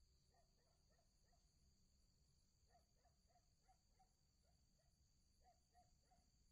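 Very faint night-time insect chorus: a steady high-pitched cricket trill, with short low chirps from another animal in small groups every second or so.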